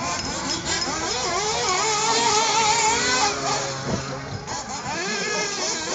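Small two-stroke nitro glow engines of 1/8-scale RC buggies buzzing and revving, their high pitch wavering up and down as the cars race round the track, loudest two to three seconds in. A single short knock comes about four seconds in.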